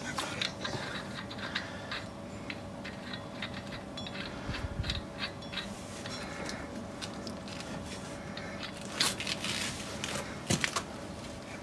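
Scattered small clicks and light clinks of hand tools and loose hub parts being handled during a wheel-hub teardown, a few louder knocks near the end, over a faint steady hum.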